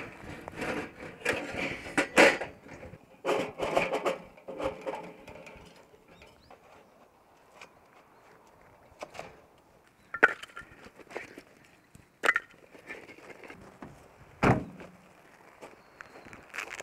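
Clanking and knocking of sheet-metal parts as a camping wood stove and its chimney pipe are fitted together, busy and dense for the first few seconds, then a few scattered knocks and one duller thump near the end.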